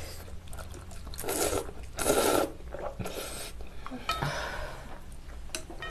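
Cold naengmyeon noodles being slurped and chewed, with a couple of short, louder slurps about one and two seconds in.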